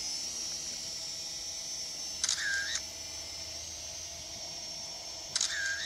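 Phone app's camera-shutter sound firing twice, about three seconds apart, as selfie photos are taken from the DWI X35 quadcopter. Under it runs the steady high whine of the small quad's motors and propellers as it hovers.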